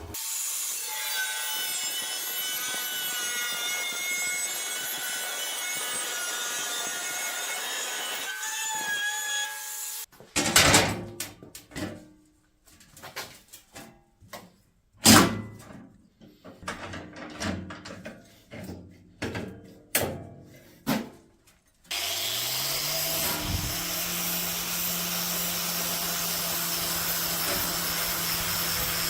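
A power tool grinding steel runs as a steady hiss with shifting high squealing tones. It then gives way to about twelve seconds of irregular sharp knocks and clanks. Near the end an electric motor spins up to speed and runs with a steady hiss.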